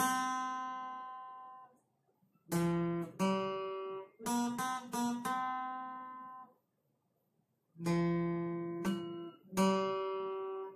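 Acoustic guitar picked one note at a time: a slow melody played in phrases, each note ringing out and fading, with two short silent pauses between phrases.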